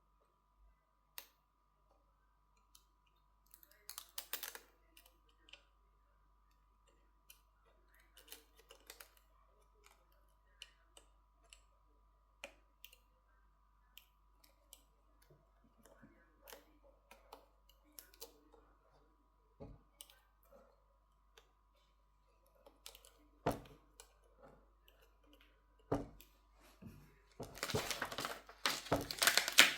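Small, scattered clicks and taps of hands and tools handling smartphone parts during a repair, with a denser patch of scraping and rustling near the end.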